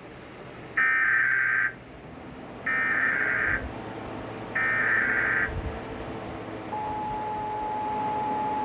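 Emergency Alert System data header: three bursts of warbling digital tones, each just under a second long and about a second apart. About seven seconds in, a steady attention tone begins. Together they mark the start of an EAS Required Monthly Test.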